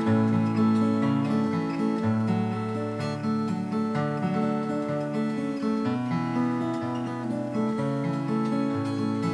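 Acoustic guitar strumming chords in an instrumental break between sung verses, with chord changes every second or two.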